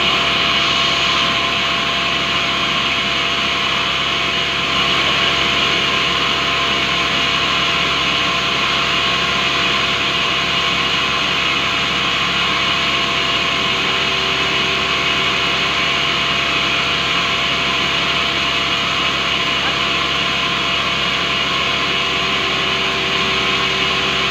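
Large sawmill band saw running steadily, a continuous machine drone with a high, even whine; a further steady tone joins about halfway through.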